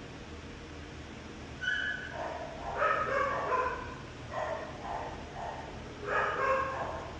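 A dog barking and whining in about three bouts, the first starting about one and a half seconds in, over a steady low hum.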